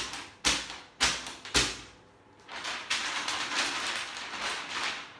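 A sheet of paper snapped sharply four times, about half a second apart. After a short pause comes a steady rustling of paper lasting a couple of seconds.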